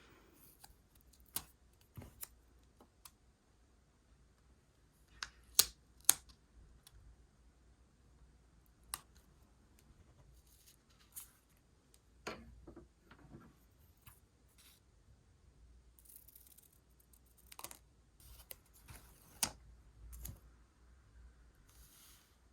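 Scissors snipping paper and other stationery being handled, heard as scattered sharp snips and clicks with a short run of close-together cuts about twelve seconds in.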